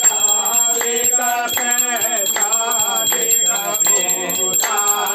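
Devotional aarti being sung to Shiva, with a bell ringing steadily through the singing.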